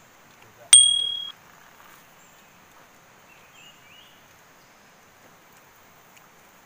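A single bright bell ding about a second in, one clear ringing tone that cuts off after about half a second: the notification-bell sound effect of a subscribe-button animation. After it, faint bird chirps over a quiet outdoor background.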